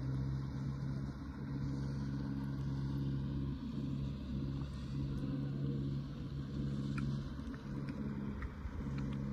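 An engine running steadily at low revs, a low droning hum.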